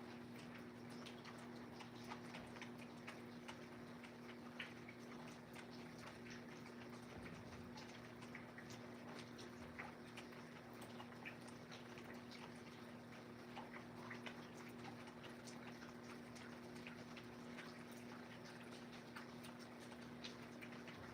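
Faint rain: irregular drops tapping and dripping, a few a second, over a steady low hum.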